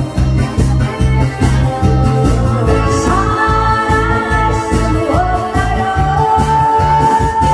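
Loud backing music with a steady, regular beat and a held melody line that changes note a few times.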